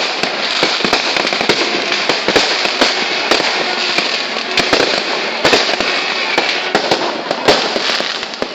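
Many fireworks going off at once: a dense, continuous crackle broken by frequent sharp bangs.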